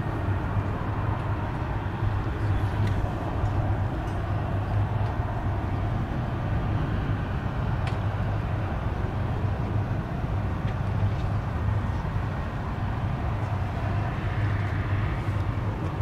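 Boeing P-8 Poseidon's twin CFM56 turbofan engines running in flight overhead: a steady, even jet rumble.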